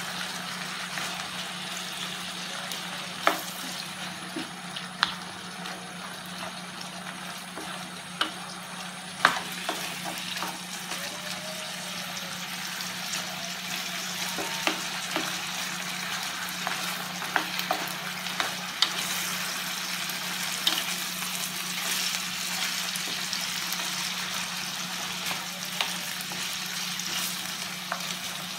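Seafood, chicken and onion sizzling in oil in a paella pan with a steady, crackling hiss. Now and then a wooden spoon knocks and scrapes against the pan as the food is stirred.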